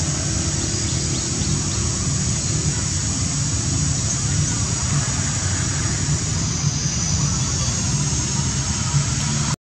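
Steady outdoor background noise: a low rumble under an even high hiss, with no distinct events.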